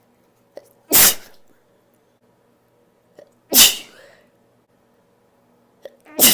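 A person sneezing loudly and unstifled three times, about two and a half seconds apart, each sneeze let out in full. Each one is preceded by a short sharp catch of breath.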